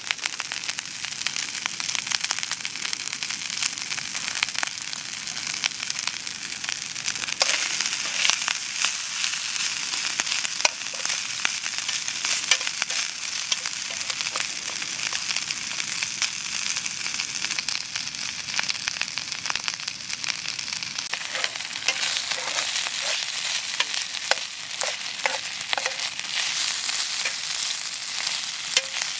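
Oyster mushroom pieces sizzling and crackling as they fry in a pan, with scattered pops and occasional stirring.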